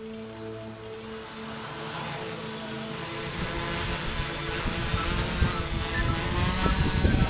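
A DJI F550 Flame Wheel-style hexacopter's six motors and propellers spinning up for takeoff, growing steadily louder as it lifts off. A gusty low rumble builds from about halfway through.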